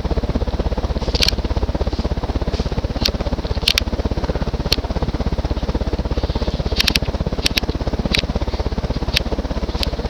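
Hunter low-profile ceiling fan with a large spinner motor running on high speed, about 240 RPM, its solid-wood blades pushing air in a fast, even pulsing. Sharp clicks come through it at irregular intervals.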